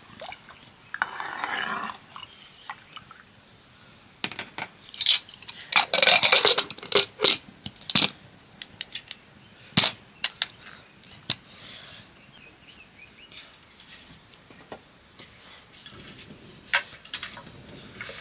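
Dishes and utensils clinking and clattering as they are handled: a scatter of sharp clicks, with the busiest and loudest run about six seconds in.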